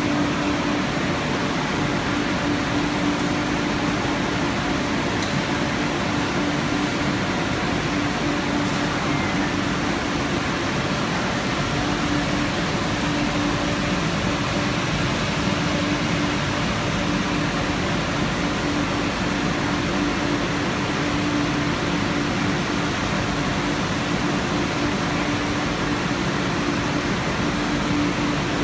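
Photo-etching machine line running: a steady even rush of machine noise with a constant low hum.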